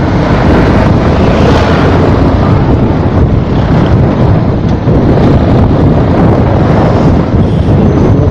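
Wind rushing over the microphone of a camera mounted on a moving motorcycle, loud and steady, with the sound of the vehicle riding underneath.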